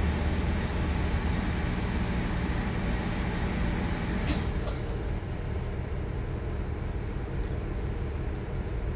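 Cabin noise inside a NovaBus LFS hybrid-electric city bus: a steady low hum with a held tone over it. About four seconds in a sharp click comes, the tone stops, and the hum goes on quieter and duller.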